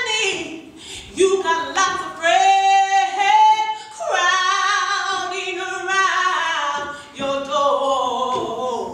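A woman singing solo and unaccompanied, holding long notes that slide up and down, with vibrato.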